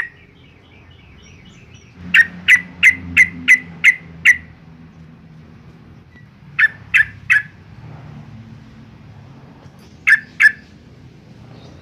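Yellow-vented bulbul calling in three bursts of short, sharp, repeated notes: a run of about seven, then three, then two.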